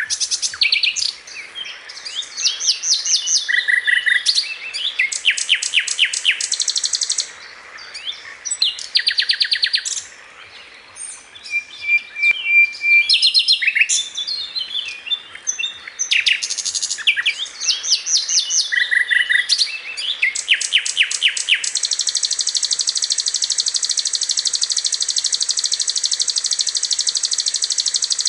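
Lovebirds chirping: shrill, high-pitched chirps in rapid trains and bursts, breaking off now and then, then merging into a continuous high chatter for the last several seconds.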